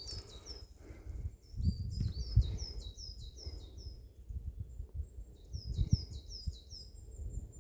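A small songbird sings runs of short, high notes that each fall quickly in pitch, several notes to a run. Underneath are low thuds and rumble close to the microphone.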